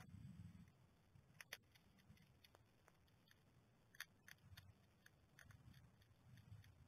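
Faint, irregular crunching clicks of a hedgehog chewing dry food pellets from a dish, several spaced a second or more apart.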